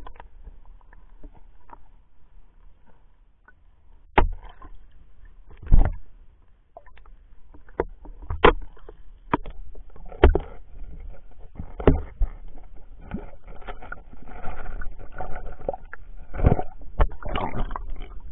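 Muffled water movement picked up by a submerged underwater camera: a steady low rumble with irregular knocks and clicks, the loudest thud about six seconds in.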